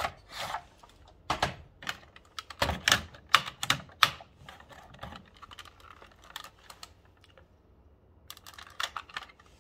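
Sharp plastic clicks and clacks from a coin mechanism being handled as its hinged gate is swung open: a quick, irregular run over the first five seconds, then a few more near the end.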